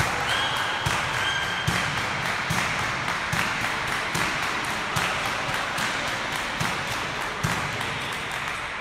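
Scattered sharp clicks of table tennis balls bouncing, over the steady murmur and echo of a sports hall.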